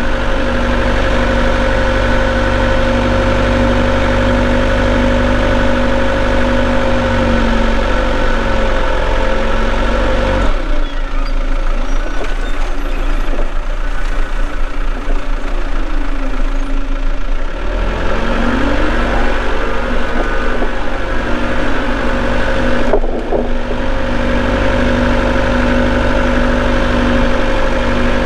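Forklift engine running steadily. For about seven seconds midway its note drops and changes, with glides in pitch, before it settles back to the same steady running.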